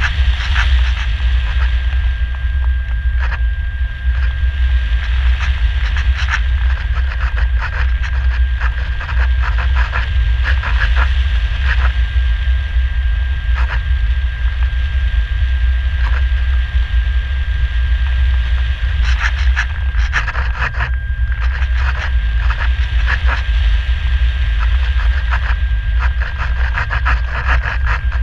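Wind rushing and buffeting over the onboard camera of a Radian Pro RC electric glider in flight, with a steady high whine and irregular crackling rattles.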